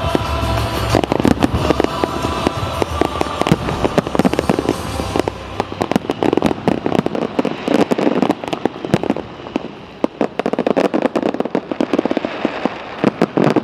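Aerial fireworks bursting in a dense barrage: a rapid, continuous crackle of sharp cracks and pops, thickest in the second half.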